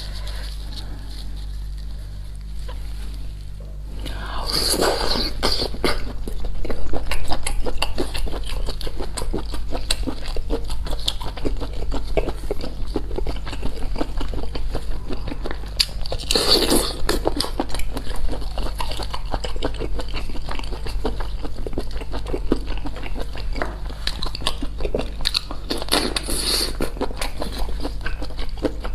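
A person eating spicy sea snails close to the microphone: a dense run of small wet clicks and crunches of chewing and biting, with three louder bursts spread through it, over a steady low hum.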